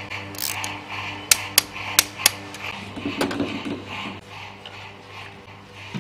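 Sharp metallic clicks and clinks of hand tools, a wrench and socket, being handled and set down during engine work. There are several clicks in the first couple of seconds and a louder clatter about three seconds in, over a steady low hum.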